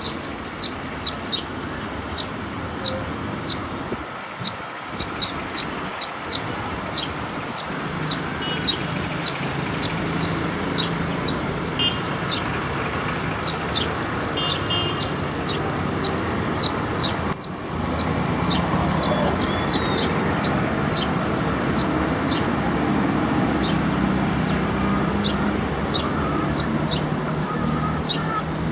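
A sparrow chirping over and over, short sharp chirps about one or two a second. Behind it is a steady hum of road traffic that grows louder a little past halfway.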